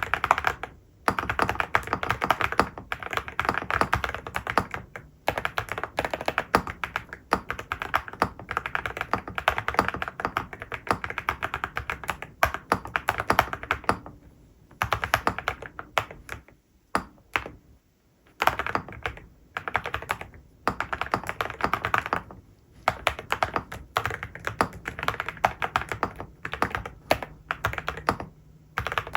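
Typing on an Akko 5098B mechanical keyboard with Cerakey V3 ceramic keycaps and Piano switches: quick runs of keystrokes broken by short pauses every few seconds.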